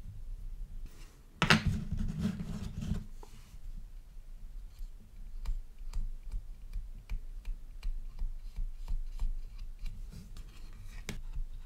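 Hands working with small hobby tools and model parts on a workbench. A louder rubbing, handling noise comes about a second and a half in and lasts over a second. Scattered light clicks and scrapes follow.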